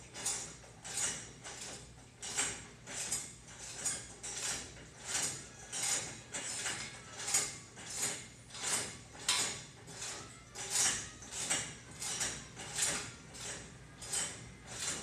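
Play-structure equipment squeaking and rattling in a steady rhythm, about three strokes every two seconds, as a child jumps on it over and over.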